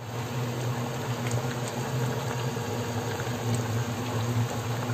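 Sour tamarind fish broth (sinigang) boiling hard in a stainless steel pot, a steady bubbling with small scattered pops, over a steady low hum.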